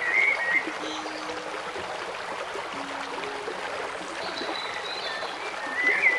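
Steady rush of running water, like a stream, with a few short bird chirps at the start and again near the end, over soft music with slow, held low notes.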